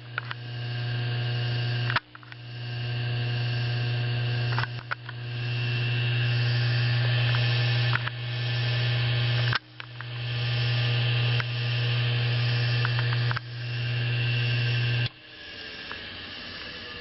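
Bench lathe's centrifugal-start 3450 RPM induction motor starting: a loud electrical hum that cuts off sharply several times and builds back up after each cut. Near the end the hum drops away to a quieter run with a faint rising whine.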